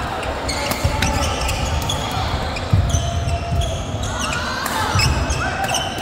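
Busy badminton hall: scattered thuds and sharp racket-and-shuttlecock hits, a few shoe squeaks on the court floor about four seconds in, and a background of many voices in the large room.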